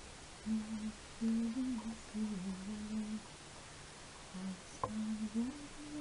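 A woman softly humming a slow tune in short phrases, holding and sliding between low notes. A single sharp click about five seconds in.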